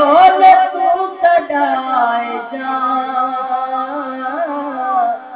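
A man singing a devotional Shia recitation unaccompanied into a microphone, in long held notes with ornamented bends in pitch.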